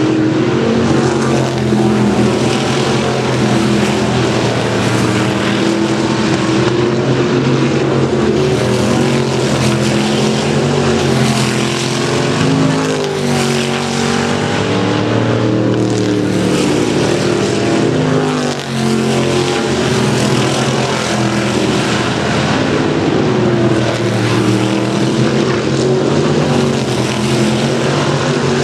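Several race car engines running at speed in practice laps, loud and continuous, their pitch rising and falling as cars come and go. The level dips briefly about two-thirds of the way through.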